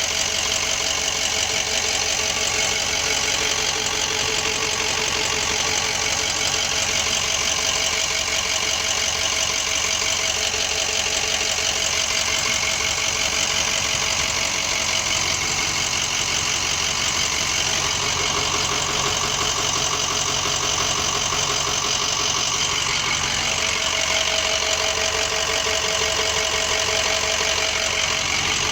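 Ford F-250 pickup's engine idling steadily after a fuel pump replacement.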